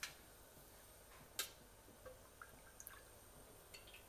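Near silence: room tone with a few faint clicks, the sharpest at the start and about a second and a half in, and small ticks near the end.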